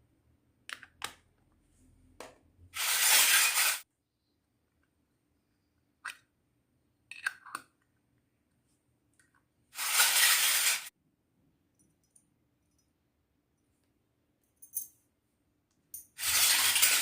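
Small toy kitchen pieces being handled: scattered light clicks and clinks, with three short rattling bursts of about a second each, near the start, in the middle and at the end.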